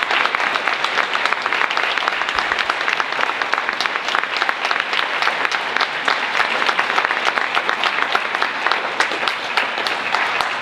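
Theater audience applauding steadily: many hands clapping at once in a dense, even patter.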